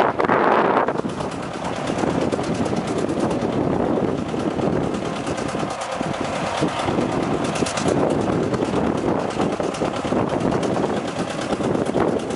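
John Deere tractor engine pulling a moldboard plow through sod, running steadily under load with a rapid, even exhaust beat.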